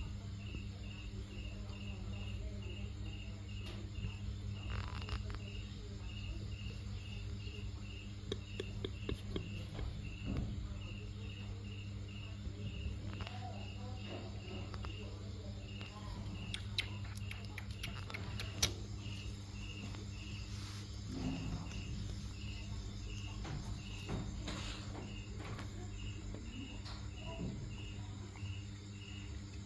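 A night insect chirping steadily, a short high pulse about twice a second, over a low steady hum. Scattered soft scuffs and scratching come from a dog scratching and licking itself on a sandy floor.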